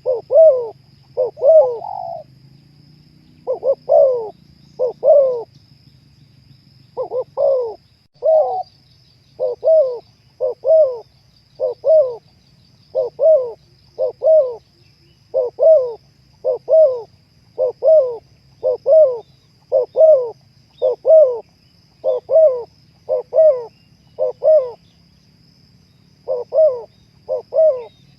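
Spotted dove cooing: a long run of short coo notes, about two a second, with a few brief pauses.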